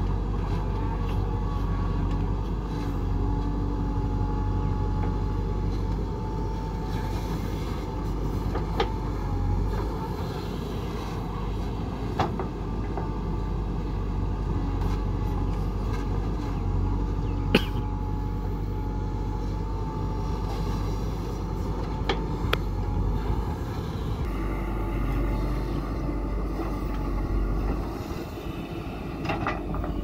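JCB 3DX backhoe loader's diesel engine running steadily while its backhoe arm digs into dirt. A few sharp clanks and knocks are scattered through; the loudest comes a little past the middle.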